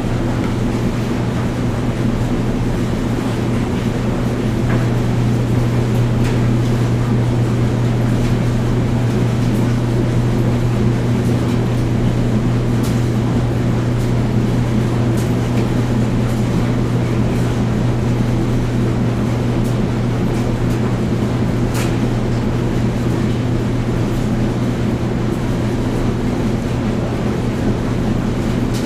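Washing machine and clothes dryer running together in a laundry room: a steady low hum with a rumbling, noisy drum sound. A few light ticks come through, about halfway in and again near the three-quarter mark.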